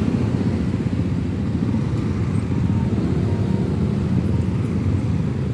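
Motorcycle and car engines running in slow, dense road traffic, making a steady low rumble.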